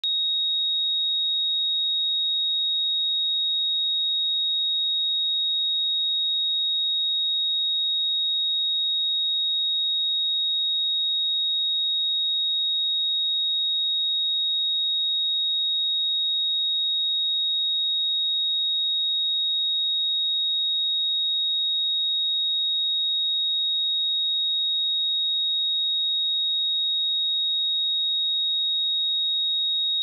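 A single pure sine-wave test tone at 3764 Hz, held steady at one pitch and level without a break.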